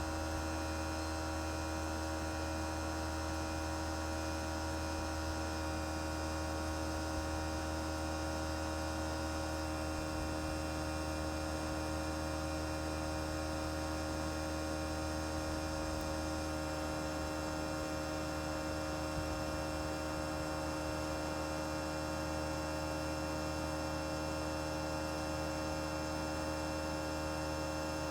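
Outdoor unit of a 1995 Toshiba RAS-251ETS air conditioner running in cooling mode at full demand, its twin rotary compressor and condenser fan making a steady hum with several fixed tones over it.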